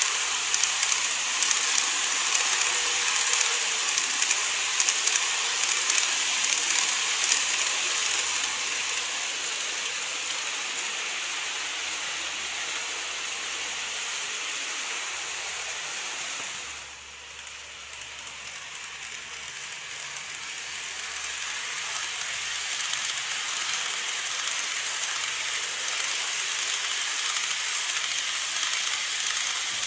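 E351 series model train running on a plastic viaduct track: a steady, dense rattle and clicking of the wheels on the rails. It drops away suddenly about halfway through as the train moves off, then grows again as the train comes back around.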